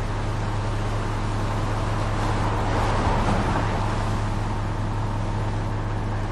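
Concrete mixer truck's diesel engine idling with a steady low hum, under a swell of road noise near the middle.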